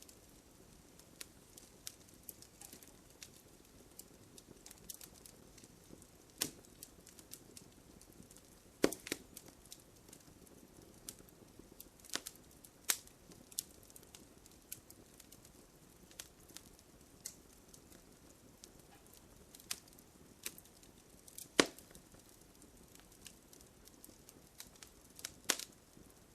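Wood fire crackling, with scattered sharp pops and snaps over a faint low hiss. A few louder pops stand out, the loudest about two-thirds of the way through.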